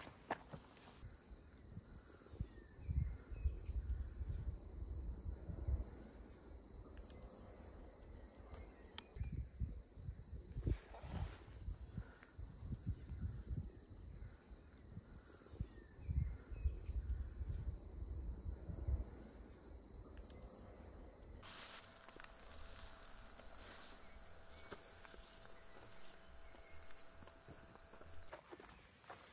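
Insects trilling steadily in one high, pulsing note, with irregular low thumps through the first two-thirds.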